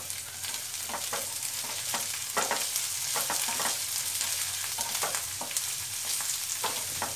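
Diced green capsicum, onion and garlic sizzling in oil in a non-stick pan. A wooden spatula stirs them, scraping and tapping against the pan at irregular intervals.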